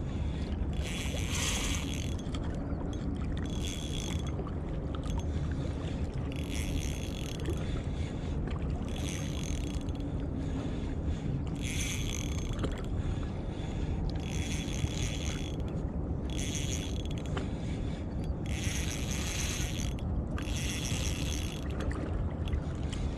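Shimano Stradic CI4+ 1000 spinning reel being cranked in short bursts, each about a second long and two to three seconds apart, as a hooked fish is pumped and reeled in. A steady low rumble runs underneath.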